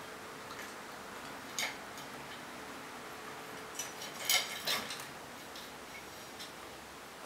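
A cat's claws and paws clicking and tapping on the metal rungs of an aluminium ladder as it climbs down headfirst: scattered light metallic taps, with a cluster of louder ones about four seconds in.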